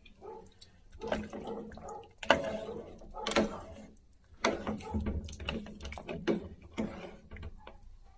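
Irregular wet liquid sounds with light knocks from the broth in a paella pan, coming in separate bursts a second or so apart.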